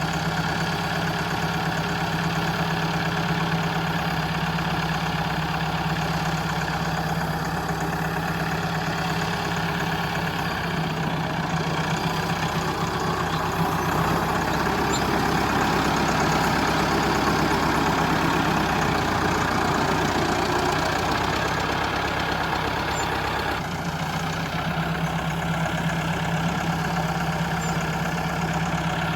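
Engine-like machine running steadily, with a constant low hum. It grows slightly louder through the middle and settles back about 24 seconds in.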